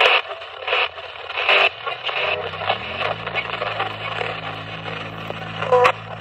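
Spirit box sweeping radio stations through a portable speaker: choppy bursts of static and clipped fragments of broadcast sound, one of which is heard as the word "four". From about two and a half seconds in, a low drone rises in pitch and then holds steady underneath.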